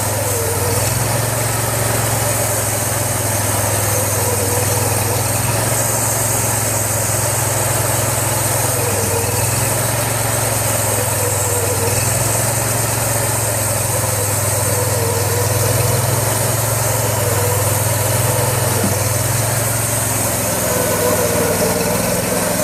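Small gas engine of a manual bandsaw mill running steadily under load as the band blade saws through a large beech log.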